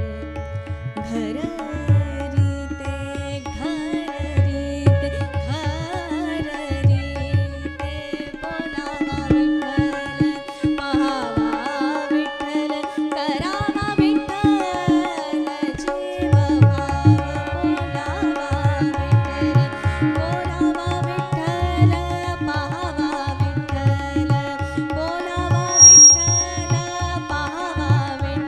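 Marathi devotional abhang sung by a woman over a sustained harmonium, with tabla accompaniment. The tabla stops for several seconds about a third of the way in, then comes back in.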